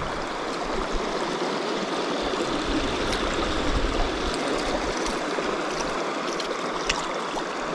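River water running steadily in an even rush, with a couple of faint ticks near the end.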